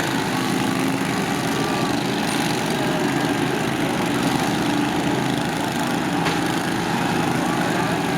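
Several riding lawn mower engines running at once, a steady mix of engine tones rising and falling a little as they rev.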